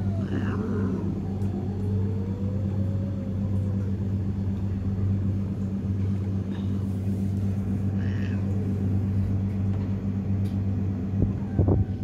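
A cat meows near the start, with fainter calls later, over a steady low machine hum.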